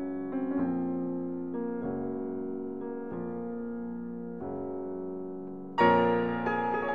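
Background piano music: slow, sustained chords changing about every second and a half, growing louder near the end.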